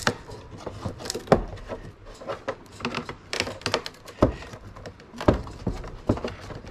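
Irregular knocks, clicks and rattles of hands moving parts, wires and a mounting plate inside a carbon-fibre RC boat hull, with a few sharper knocks standing out.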